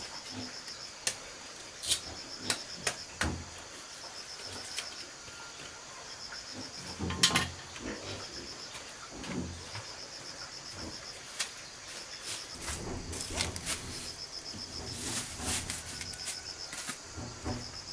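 Insects chirping in a steady, even pulsing rhythm, with scattered sharp knocks and clatter over it. The loudest knock comes about seven seconds in, and there is a busier run of knocks from about twelve seconds.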